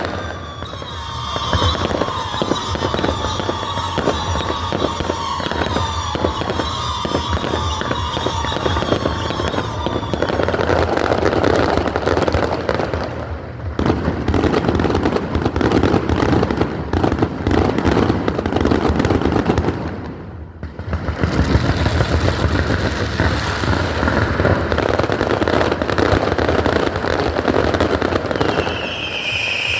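Daytime fireworks barrage going off in rapid, continuous bangs and crackle. Through the first third, whistles sound over the bangs, falling slowly in pitch. The firing eases off briefly twice before picking up again.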